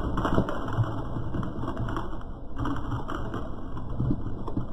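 Car tyre rolling slowly over small egg-shaped objects and crushing them, with a run of crackles and crunches and a few sharper cracks.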